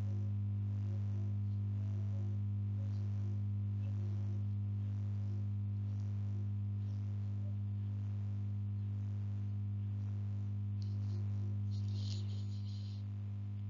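Steady low electrical mains hum on the recording, with a fainter higher tone above it, and a brief faint hiss about twelve seconds in.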